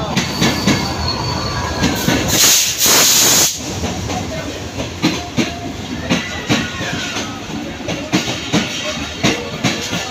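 Pakistan Railways passenger train with a GEU-40 diesel locomotive pulling into the platform, its coach wheels knocking over the rail joints in an uneven clickety-clack. About two and a half seconds in comes a loud burst of hiss lasting about a second.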